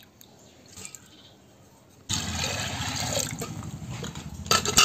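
Water poured into an aluminium pressure cooker over split lentils, starting suddenly about two seconds in as a steady rush, with a few sharp clinks near the end.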